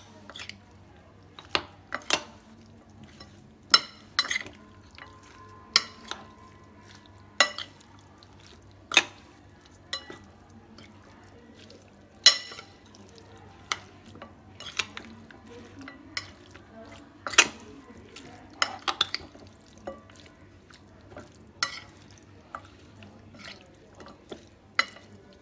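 Metal spoon stirring raw chicken wings in a glass bowl, clinking against the glass at irregular moments, about one clink every second or two.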